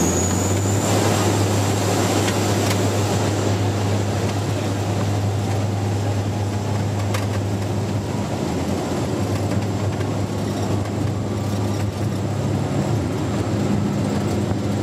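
Bombardier Dash 8 Q400's Pratt & Whitney PW150A turboprops and six-bladed propellers at high power during the takeoff roll, heard from the flight deck: a steady low propeller drone over a rushing of air and wheel noise.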